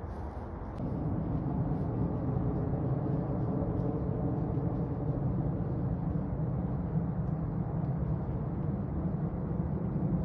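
Steady low rumble of motor traffic with a faint hum, growing louder about a second in and then holding steady.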